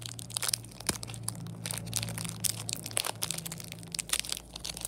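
Foil Pokémon booster pack wrapper crinkling and crackling in irregular bursts as it is worked open by hand; the pack is hard to open.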